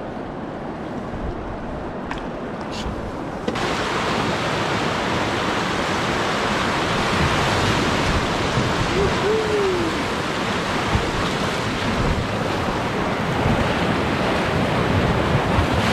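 River water rushing, quieter for the first few seconds and then, about three and a half seconds in, the louder, steady rush of whitewater rapids around a drift boat, with some wind on the microphone.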